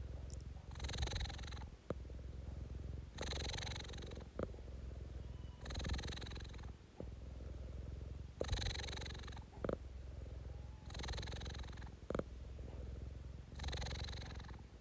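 Domestic cat purring steadily at close range, the purr swelling with each breath about every two and a half seconds, with a few short clicks.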